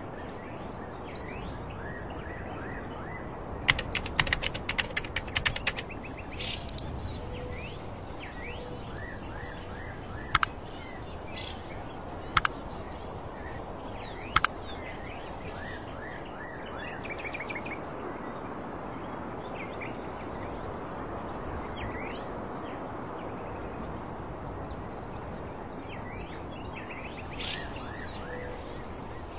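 Outdoor ambience of birds chirping over a steady background hiss, with a quick burst of laptop keyboard typing about four seconds in and a few single key clicks over the following ten seconds.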